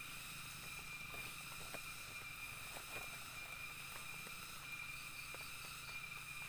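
Faint, scattered crackles of a small wood campfire over a steady, high-pitched background drone.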